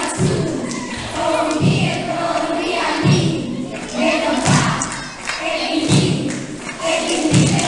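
Song with singing voices over a deep drum beat that thumps about every second and a half.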